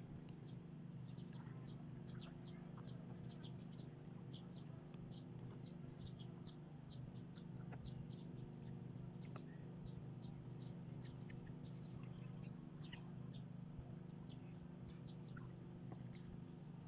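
Small birds chirping, many short high chirps in quick, irregular succession, over a faint steady low hum.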